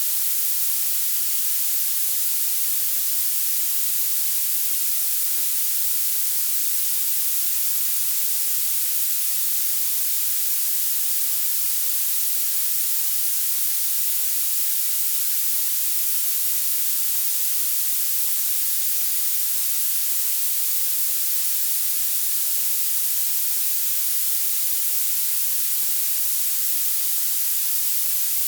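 Violet noise: a steady, unbroken hiss whose energy climbs toward the very highest pitches, with almost nothing in the low end.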